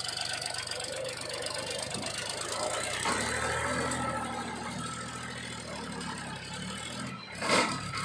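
Powertrac 434 DS Plus tractor's three-cylinder diesel engine running under load as it pulls a trailer loaded with soil; the engine note deepens about three seconds in. A short, loud squeal near the end.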